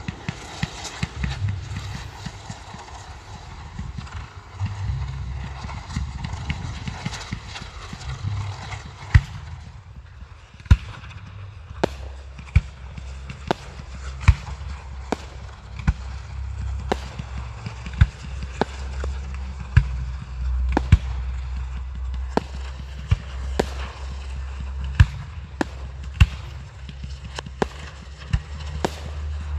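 Fireworks display: for the first nine seconds or so a ground fountain and crackling effects give a dense crackling hiss, then aerial shells burst in a run of sharp bangs about one a second. A steady low rumble runs beneath.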